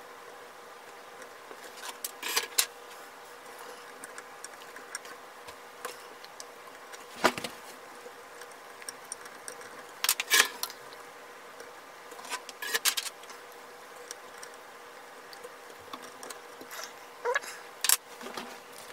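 Scattered small clicks, taps and scrapes of a hand tool and fingers working on the circuit boards inside an open shortwave receiver's chassis, prying out blown grain-of-wheat lamp bulbs. The sharpest clicks come a few seconds apart over a faint steady hum.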